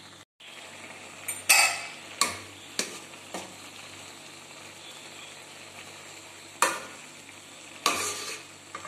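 Metal perforated ladle stirring noodles in an aluminium kadai, its scrapes and knocks against the pan coming in about seven irregular strokes, the loudest about a second and a half in. Under them runs a faint hiss of the sauce simmering.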